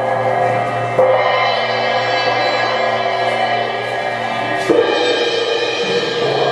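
Suspended cymbals and gongs struck with mallets, ringing with a long shimmering metallic sustain. Fresh strokes land about a second in and again near the end, each sounding over the ring of the last.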